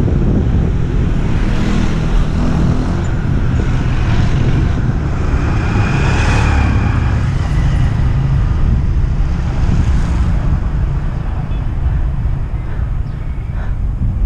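Wind rumbling on the microphone of a moving bicycle, with road traffic around it; a vehicle passes, swelling and fading, about six seconds in.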